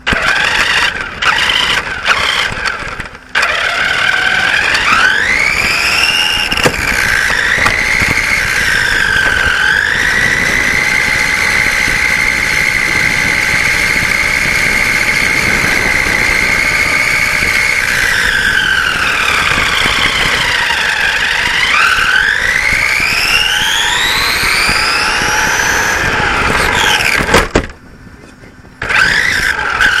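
Radio-controlled saloon car's motor whining, its pitch rising as it speeds up, holding steady for several seconds, then falling and climbing again, over the rumble of its tyres on rough asphalt. The whine and rumble drop away briefly a few times near the start and once near the end.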